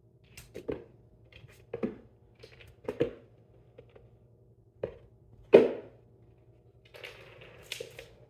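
Irregular thumps and knocks of a cat pouncing and landing while playing with a feather wand toy, with the loudest thump about five and a half seconds in and some rustling near the end.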